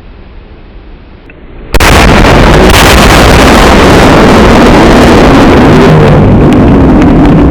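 An explosive charge blowing up the bottom of a gingerbread tower: a sudden loud blast about two seconds in, overloading the microphone, then several seconds of loud rushing noise.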